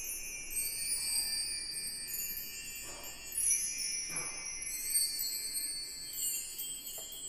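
Background music of high, tinkling chime-like notes with no bass or beat.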